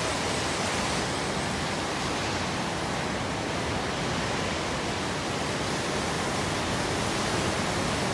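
Steady wind noise on the microphone: an even rushing with no tone or rhythm in it.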